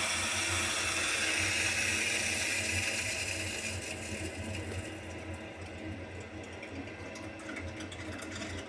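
Water hissing through a Baxi Duo Tec 28 combi boiler's filling valve as the heating system is topped up to raise its low pressure. The hiss dies away about halfway through, leaving a steady low hum.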